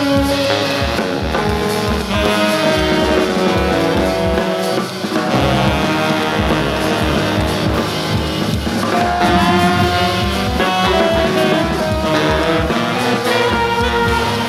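Jazz band playing swing: sustained melody notes over a steady drum-kit beat, with guitar.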